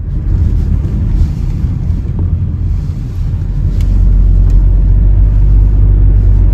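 Loud, steady low rumble of a car on the move, road and wind noise, that starts abruptly and gets a little louder about four seconds in.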